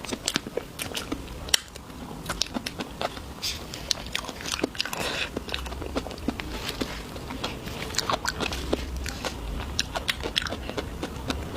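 Close-miked eating of desserts: a person biting and chewing, with many irregular sharp clicks and crunches of the mouth and food.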